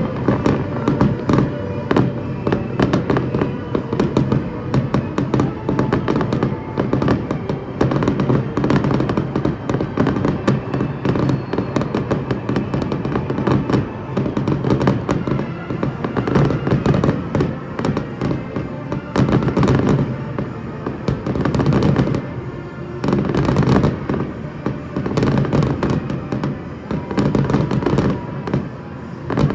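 Aerial fireworks going off in a dense, rapid barrage of bangs and crackles, with music playing underneath.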